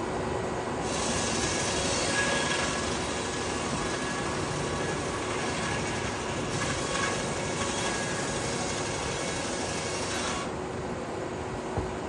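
Sawmill blade cutting through a log over the steady running of the mill's machinery: the hiss of the cut starts about a second in and stops sharply about ten seconds in, leaving the machinery running on. A small click comes near the end.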